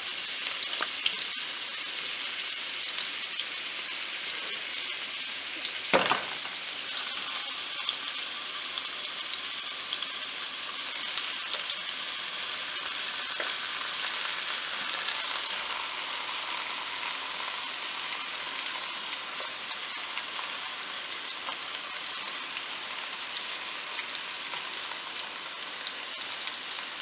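Marinated chicken sizzling steadily in oil in a kadhai over a low flame, with a fine crackle. A single sharp knock about six seconds in.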